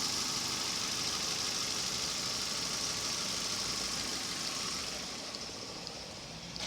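Nissan Almera engine idling steadily and smoothly, its cylinder head freshly redone, with a high hiss over the running; the sound eases slightly about five seconds in.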